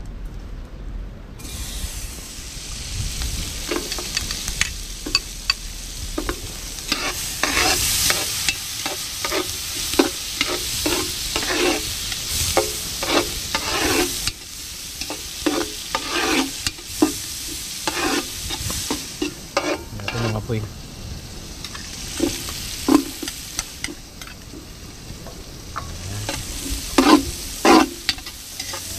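Onions and fat frying in a large metal cooking pot: a steady sizzle that starts about a second and a half in, with a metal ladle scraping and clinking against the pot many times as it is stirred.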